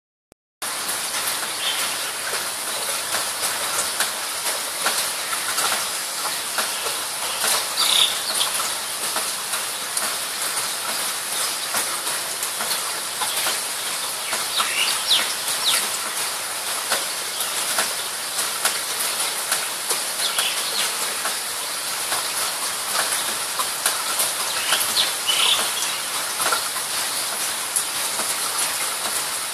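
Steady high hiss with a few short bird chirps spaced several seconds apart.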